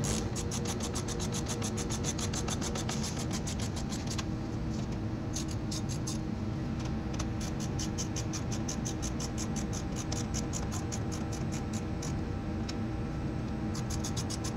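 Background music with a quick, perfectly even ticking beat, about seven ticks a second, over held tones; the ticking drops out twice and comes back.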